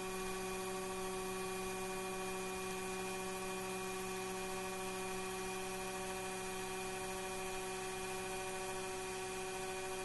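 Taig CNC mill running steadily, its spindle at high speed milling an aluminium blank with a small end mill: an even whine made of several held tones over a faint hiss.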